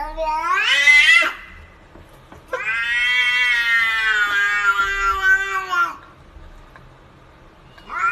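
Domestic cat giving long, drawn-out meows. One rises in pitch and breaks off about a second in, a steady call of over three seconds follows, and another begins near the end.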